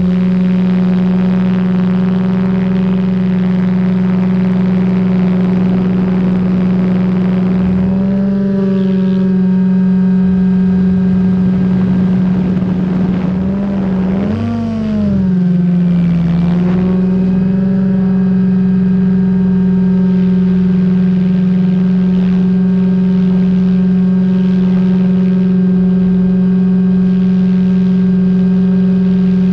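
SAB Goblin 500 electric RC helicopter in flight, heard from a camera on its tail boom: a loud, steady rotor and drive hum. Its pitch wavers briefly about eight seconds in, and about halfway through it bends up and then down.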